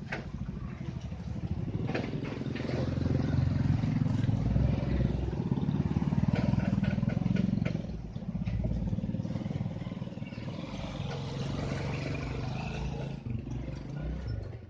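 Heavy vehicle engine running hard under load, rising in level about three seconds in and easing back about eight seconds in, with a few sharp knocks near the start.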